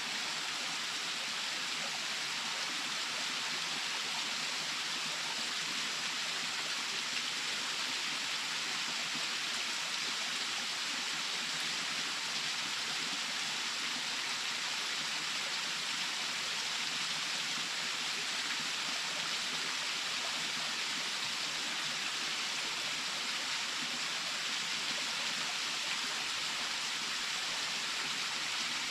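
Waterfall: water falling and splashing in a steady, even rush that never lets up. The sound is mostly a bright hiss, with almost no low rumble.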